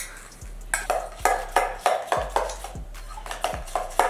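A utensil stirring mayonnaise and Dijon mustard in a stainless steel mixing bowl, clinking against the metal sides about three times a second, each clink ringing briefly.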